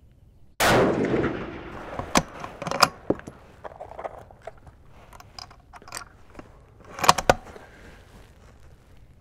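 A single shot from a 6mm Creedmoor bolt-action rifle about half a second in, with a long echoing tail. Then metallic clicks and clacks of the bolt being worked and a round loaded, with a louder cluster of clacks about seven seconds in.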